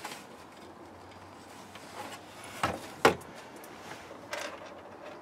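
Hard plastic interior trim knocking and rubbing as a car's parcel shelf is lifted out, with two sharp knocks close together near the middle and a softer knock about a second later.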